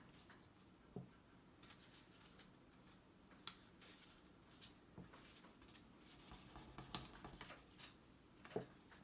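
Paper strips being handled and glued together with a glue stick: faint rustling and rubbing of paper, with scattered light clicks and taps. It is busiest a little past halfway.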